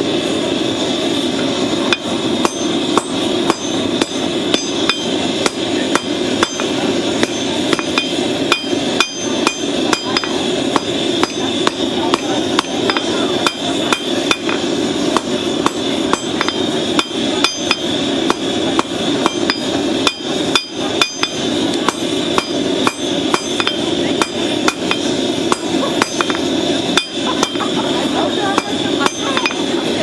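Hand hammer striking a red-hot piece of horseshoe rasp steel on an anvil, forging it into a blade. The blows come steadily at about two a second, starting about two seconds in, over a continuous roar.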